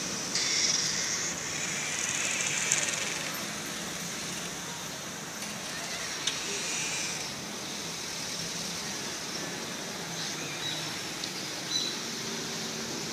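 Town street ambience: a steady wash of traffic noise and hiss, with a few small clicks.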